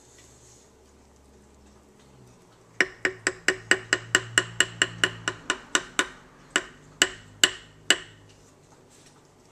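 Wooden spatula tapped against the rim of a stoneware slow-cooker crock to knock off the soup: about twenty sharp, ringing taps, around five a second at first, slowing to a few spaced knocks before stopping.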